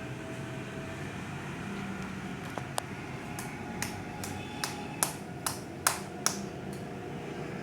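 A run of about ten sharp clicks from working slime with a spoon, starting a couple of seconds in and growing louder before stopping about a second before the end, over a steady background hum.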